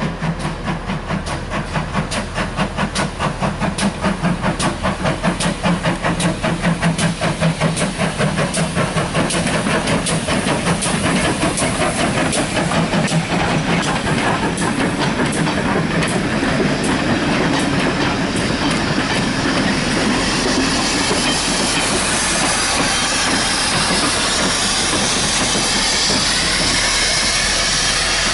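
Steam locomotive pulling away: its exhaust beats quicken from about three a second until they run together into a steady hiss as it gathers speed.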